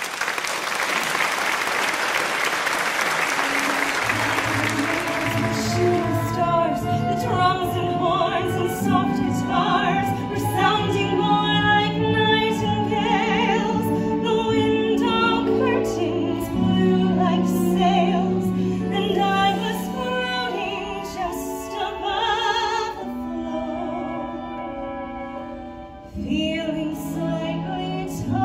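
Audience applauding, dying away about five seconds in, then a woman singing a show tune in a high, classical-sounding voice over instrumental accompaniment.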